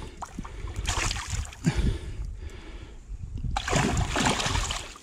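Rainbow trout splashing and thrashing at the water's surface as it is drawn in on the line to be landed. The splashing comes in several bursts, the longest about four seconds in.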